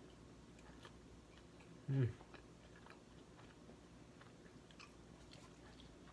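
Faint chewing of small hamburgers close to the microphone: scattered soft wet mouth clicks. About two seconds in there is one short, low vocal sound that falls slightly in pitch, the loudest thing here.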